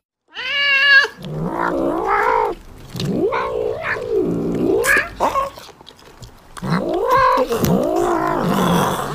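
Tabby cat yowling as it eats, about five long wavering calls that bend up and down in pitch, with short gaps between them.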